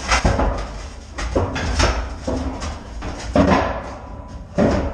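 Large metal naval powder cans being shifted and handled, with a string of irregular clanks, knocks and scrapes of metal on metal, some ringing briefly, over a steady low hum.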